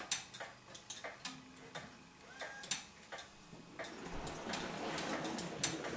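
Hornby 00 gauge live steam locomotive reversing along the track: scattered light clicks and ticks of its wheels and running gear, with a steady steam hiss building from about four seconds in.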